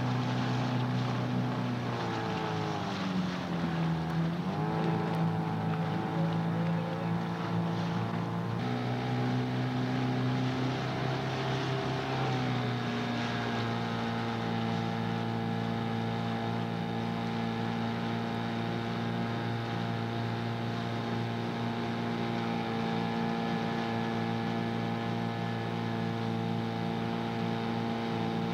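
Outboard motor of a coaching launch running steadily. Its pitch dips and comes back up a few seconds in, shifts again around the middle, then holds at an even speed.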